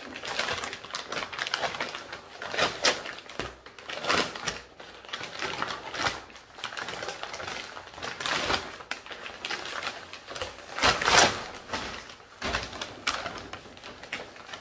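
Brown paper shipping bag crinkling and rustling in irregular bursts as hands pull it open, with the loudest crackle about eleven seconds in.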